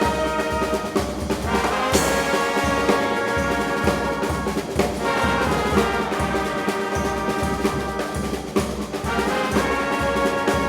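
A brass band playing with horns in harmony over a steady low beat.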